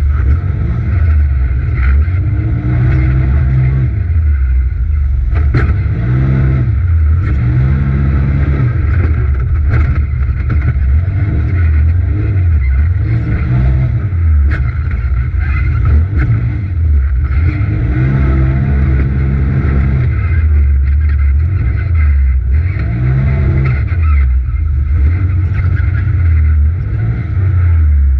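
Polaris RZR XP Turbo side-by-side's turbocharged twin-cylinder engine heard from inside the cab, revving up and easing off again and again under hard driving. A few sharp knocks stand out between the revs.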